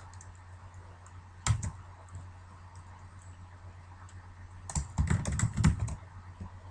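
Computer keyboard typing: a single keystroke about a second and a half in, then a quick run of keystrokes near the end.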